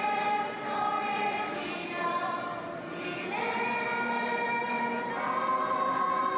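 A choir of girls and women singing, holding long notes that step up in pitch a little after three seconds and again near five seconds.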